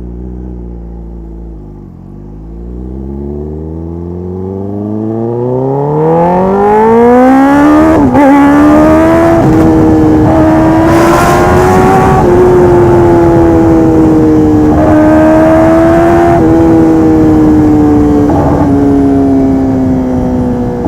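Kawasaki ZX-10R inline-four engine through a full RJ project exhaust system, accelerating hard. Its revs ease off at first, then climb steadily from about two seconds in, with a brief dip near eight seconds, like a gear change. After that it runs loud at high revs, rising and falling a little with the throttle.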